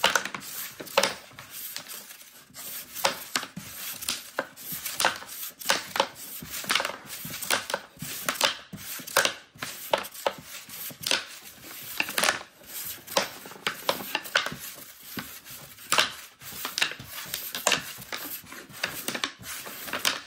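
Wooden sling-puck board game in rapid play: discs snapped off the elastic bands clack against the wooden board walls, the centre divider and each other in a fast, irregular run of sharp knocks, several a second.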